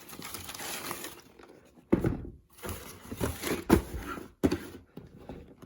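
Handling noise from a sneaker unboxing: a few soft thumps and knocks as the cardboard shoebox and shoes are moved and set down, with some faint rustling.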